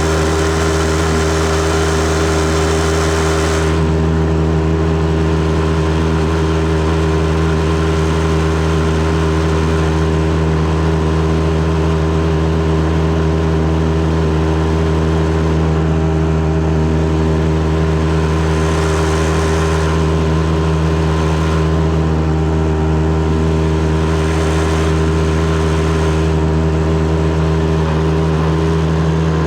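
Boat's outboard motor running at a steady speed, with a hiss of wind and water over it that is a little brighter in the first few seconds.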